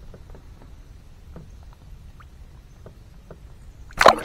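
A bream released by hand, slapping back into the water with one loud splash near the end. Before it there are only faint, scattered small clicks and knocks.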